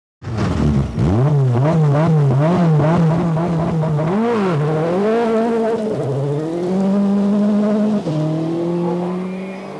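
Peugeot 206 WRC's turbocharged 2.0-litre four-cylinder rally engine driven hard on gravel. The revs swing up and down quickly, about twice a second, then climb more steadily, with upshifts about six and eight seconds in.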